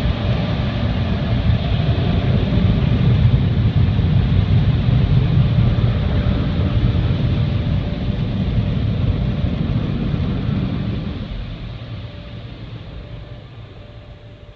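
Car wash air dryers blowing with a loud, steady rush, fading away over the last few seconds as the car pulls clear of them.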